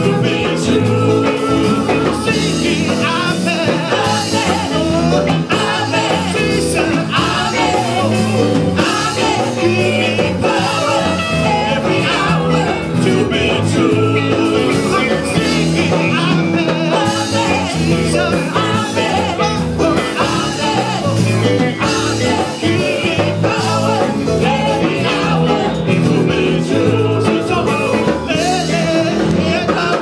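Live praise-and-worship band: women's voices singing lead through handheld microphones, backed by electronic keyboard and acoustic guitar, playing steadily without a break.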